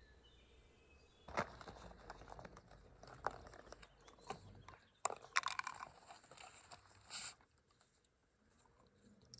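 A run of irregular clicks, taps and crunches, with a short hiss about seven seconds in.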